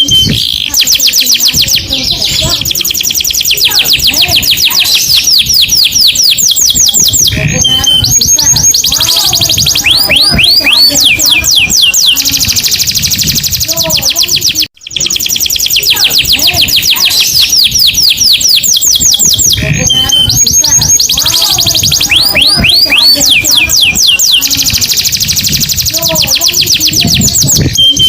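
Domestic canary song: long runs of rapid, high trills and rolls, one phrase after another, with a brief break about halfway through.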